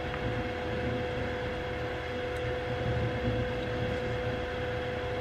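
Steady machine hum with a constant mid-pitched whine over an even background hiss, unchanging throughout, like a fan or power supply running.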